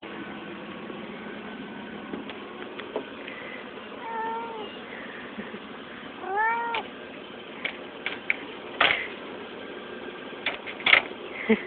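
Orange tabby cat meowing twice, a short meow and then a louder, longer one that rises and falls in pitch. After that come several sharp clicks and scratches as the cat paws at the window screen, the loudest near the end.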